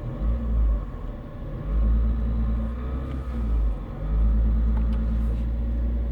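Citroën C3 Picasso diesel running with a deep rumble, its steady drone swelling in level about two and four seconds in as the throttle is opened.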